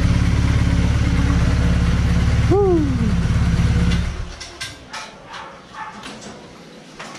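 BMW R1250GS boxer-twin engine idling steadily, then switched off about four seconds in. A dog barks once partway through, and a few faint clicks follow once the engine has stopped.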